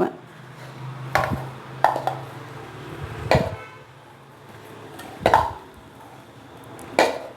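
Five separate knocks of a utensil against kitchen vessels, short and sharp with a brief ring, spread unevenly over several seconds, as batter is handled.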